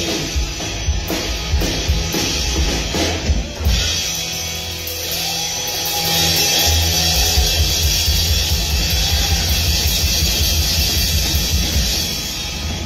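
Live rock band playing loud, with the drum kit to the fore: fast, busy bass drum and drum strokes under amplified electric guitar.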